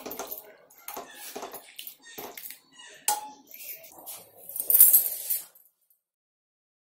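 Metal kitchen utensils clinking and scraping against a cooking pot, a string of irregular knocks with one louder scrape about five seconds in, then the sound cuts off.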